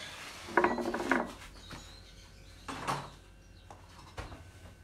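Light clinks and knocks of crockery and cutlery on a kitchen counter while soup bowls are garnished, with a brief voice sound about half a second in.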